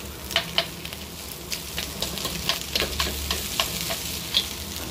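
Egg fried rice sizzling in a hot wok as it is stirred with chopsticks. The chopsticks click sharply against the pan at irregular moments, about ten times.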